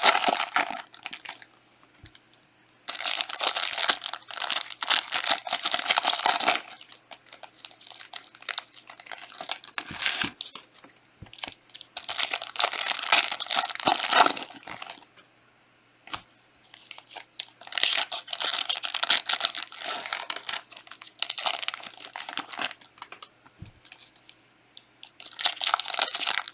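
Foil trading-card packs being torn open and their wrappers crinkled, in several bouts of a few seconds each with short quiet pauses between.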